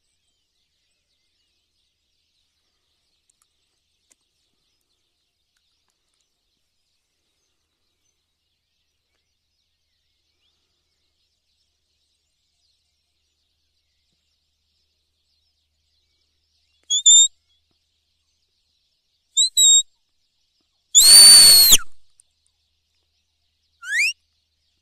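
Silence for most of the time, then a handful of short, high whistled calls in the last eight seconds, most dipping slightly in pitch, one sliding upward, with the third of them the loudest.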